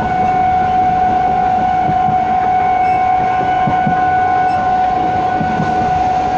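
Electric local train's horn sounding one long steady blast over the rumble of the train running along the track.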